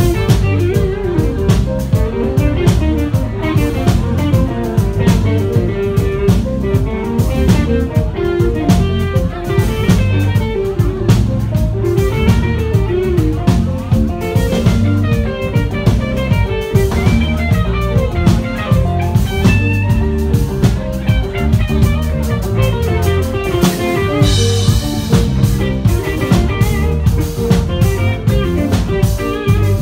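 Live band playing an instrumental passage: electric guitar and keyboard over a drum kit keeping a steady beat.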